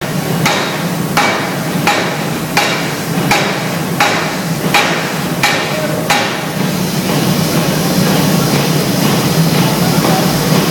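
Steam forging hammer striking a red-hot steel billet on the anvil: about nine heavy blows in an even rhythm, a little under a second apart, stopping about six seconds in. A steady low machinery hum continues underneath and after.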